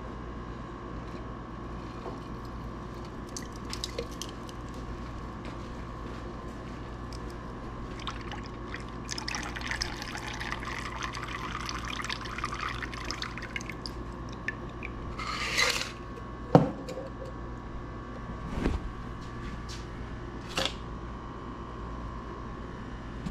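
A shaken cocktail poured from a stainless steel shaker tin into a coupe glass, a steady run of liquid for several seconds. Then a few short knocks and clinks, one of them sharp, over a faint steady hum.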